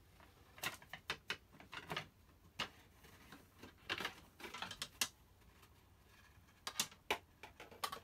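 Light, irregular clicks and scratchy rustles of a wire coat hanger and string being handled as string is tied onto the hanger's end, with a short pause just past the middle.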